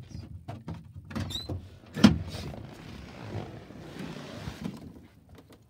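Handling and movement noise inside a pickup truck's cab: rustling and bumping, with one sharp knock about two seconds in, fading off near the end.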